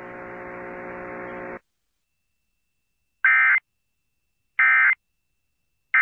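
A steady buzzing hum cuts off about a second and a half in. After a short silence come three identical short screeching bursts of Emergency Alert System SAME digital data, about 1.3 s apart: the end-of-message code that closes the alert.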